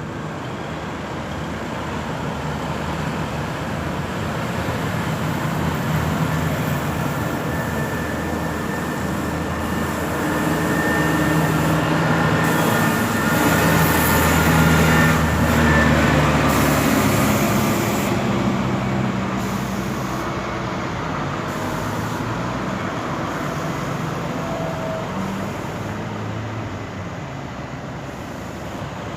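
Street traffic, with a motor vehicle's engine growing louder to a peak about halfway through and then fading as it passes.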